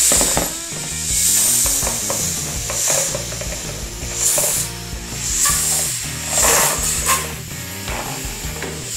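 Air hissing out of a partly inflated rubber balloon's neck in short spurts as it is let out bit by bit, with the balloon's rubber rubbing as it is pressed down around a phone.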